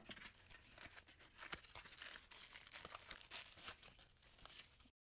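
Faint tearing and crinkling of packaging as a parcel is opened, with scattered small rustles and clicks; it cuts off abruptly near the end.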